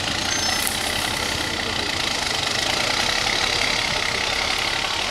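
Off-road trial truck's diesel engine running steadily as the truck crawls slowly over a rough dirt section.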